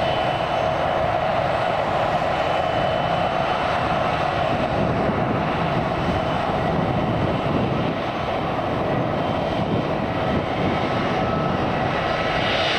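Jet airliner engines running as the plane departs: a steady drone with a faint high whine above it.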